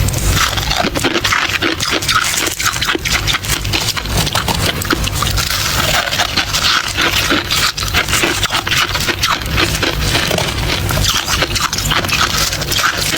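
Close-miked crunching of soft, frosty ice being chewed, a dense run of rapid crackles and crunches.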